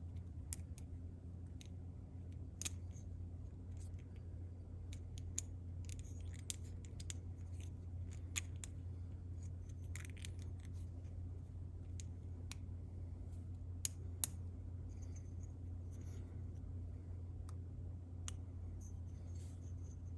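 Light, scattered metallic clicks and scrapes as a piston ring is spread and worked by hand onto a Honda TRX90 piston, with two sharper clicks a little past the middle. A steady low hum runs underneath.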